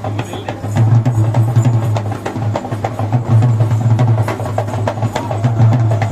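Music with fast drumming: many quick, sharp drum strikes over a steady low hum.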